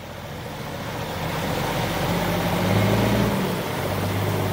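Heavy multi-axle dump truck's diesel engine pulling away, a low drone that grows louder over the first three seconds and then holds steady.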